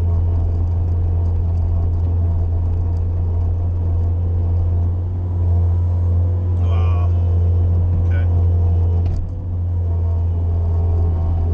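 Bobcat skid-steer loader's engine running with a steady low drone while plowing snow, with a few brief higher sounds over it about seven and eight seconds in.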